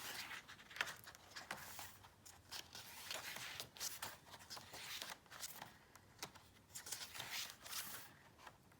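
Album packaging being unwrapped and handled by hand: a string of short, irregular crinkles and scrapes.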